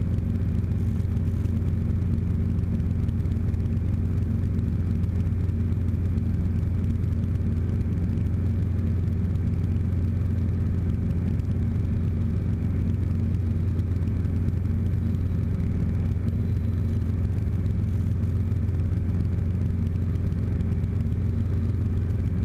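Robinson R22 helicopter's piston engine and rotor droning steadily in flight, heard from inside the cockpit.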